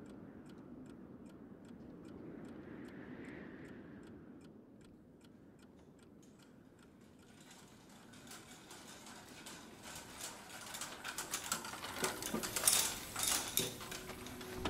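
A clock ticking steadily, about three ticks a second. From about halfway, denser irregular clicking and clacking comes in and grows louder toward the end.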